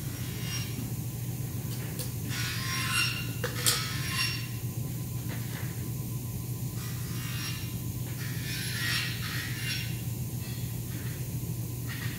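Aluminium window-frame profiles being handled and worked on a bench: intermittent scraping and rattling in several bouts, with one sharp metal knock about three and a half seconds in. A steady low hum runs underneath.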